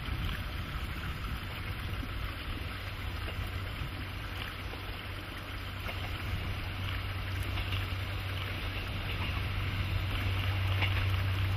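Distant KiHa 40-series diesel railcar approaching, its engine a low steady drone that grows louder toward the end, over a steady background hiss.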